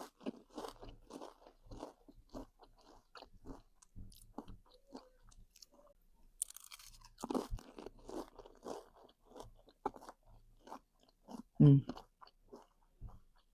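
A person eating corn dip, with crunchy bites and wet chewing at about two to three chews a second.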